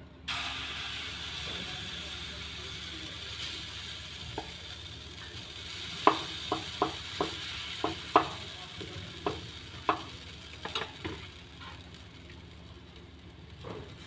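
Gram-flour (besan) uttapam batter sizzling as it is poured into a hot, oiled non-stick pan: a hiss that starts suddenly and slowly dies down. From about six seconds in, a steel spoon clicks against the pan about ten times as the batter is spread into a round.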